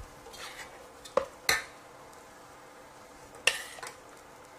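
Steel ladle clinking and scraping against a stainless steel pot while scooping out mutton gravy. There is a soft scrape, then two sharp clinks just over a second in and another about three and a half seconds in.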